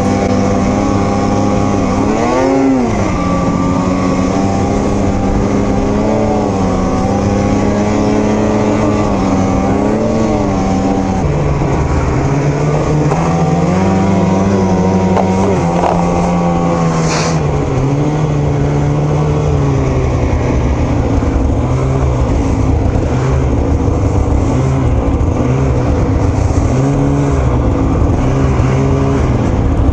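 Snowmobile engine running under throttle, its pitch rising and falling as the rider speeds up and eases off. There is a brief hiss about seventeen seconds in.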